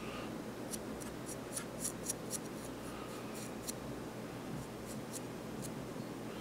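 A paintbrush's bristles flicked against the steel blade of a hobby knife to spatter oil-paint speckles: a dozen or so quick, faint ticks, about three a second, mostly in the first few seconds. The force of each flick sets the size of the speckles.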